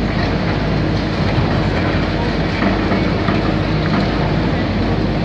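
Diesel engines of heavy demolition excavators running steadily under load, with scattered clatter of concrete being crunched and rubble falling.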